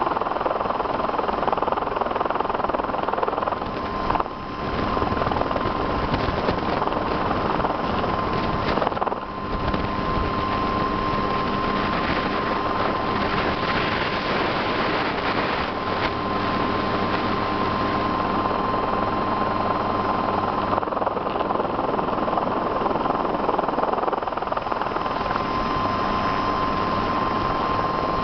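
Helicycle single-seat kit helicopter hovering: its turbine engine and rotor make a steady, loud drone with a constant high whine. The noise dips briefly twice, about four and about nine seconds in.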